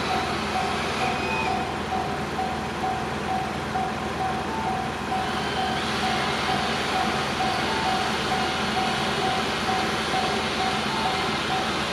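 Railway level-crossing alarm ringing its electronic bell tone over and over at an even pace. A broad rushing noise comes up about five seconds in as a train runs past.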